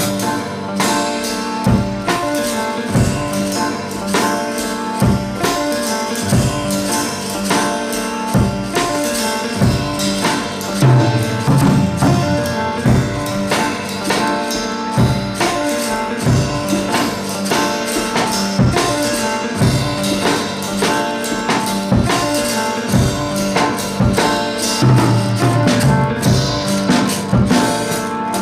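Background pop music with a steady drum beat and tambourine, instrumental with no singing.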